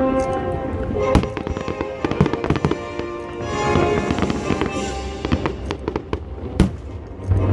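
Fireworks bursting in a rapid run of bangs and crackles, with a louder boom about a second in and another near the end. Music plays throughout.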